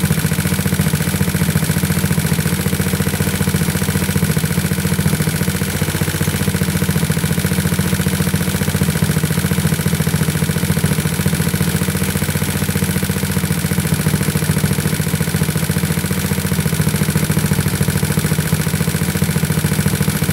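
Big-bore GY6 scooter engine running steadily at idle while its carburetor's air-fuel screw is turned a quarter turn clockwise to richen the mixture.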